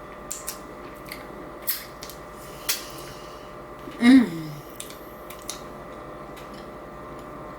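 Close-up eating sounds of a person eating fish tacos: a few scattered sharp mouth clicks and chewing sounds, with one short voice sound falling in pitch about four seconds in.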